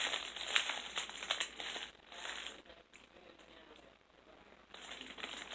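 A mail package's wrapping rustling and crinkling as it is handled, with sharp little crackles. It goes quiet for about two seconds in the middle, then starts again near the end.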